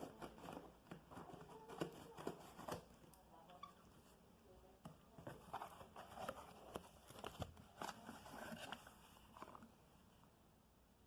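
Product packaging being handled and opened: faint scattered clicks, rustles and crinkles of cardboard and plastic, quieter for a stretch in the middle.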